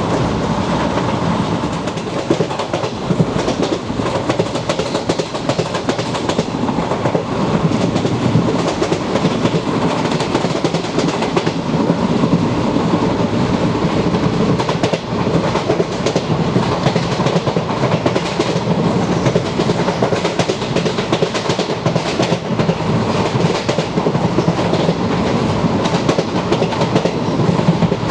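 Track sounds inside a moving ICF passenger coach: steel wheels clattering over rail joints with a continuous rumble and rattle, steady throughout.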